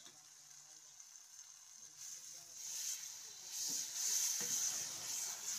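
Onion and green chilli masala sizzling in hot oil in a metal wok, growing louder about halfway through as a wooden spoon stirs it.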